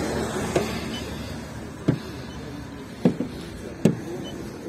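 About five soft, irregular taps over a low steady background noise that fades during the first two seconds.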